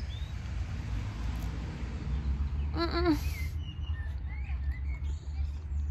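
Wind noise on the microphone, a steady low rumble, with faint short bird chirps in the second half and a brief hummed 'mm' from a woman about three seconds in.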